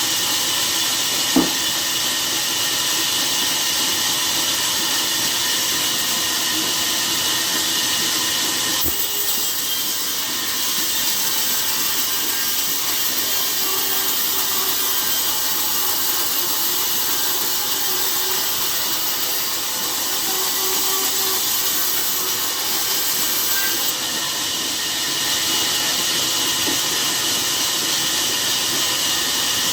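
Steady hissing noise of sawmill machinery running, with one sharp knock about a second and a half in. The sound's character shifts abruptly twice, about nine and twenty-four seconds in.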